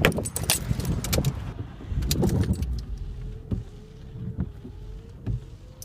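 Keys jangling, with a quick run of clicks and knocks, then a few scattered knocks over a faint steady hum that slowly rises in pitch.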